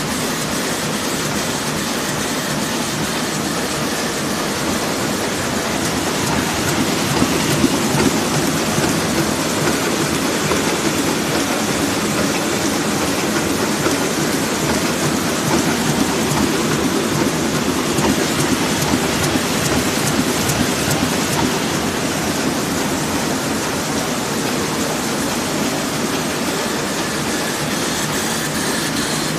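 1993 Heidelberg Speedmaster SM 102 multi-colour sheetfed offset press running, a loud, steady mechanical din with no pauses.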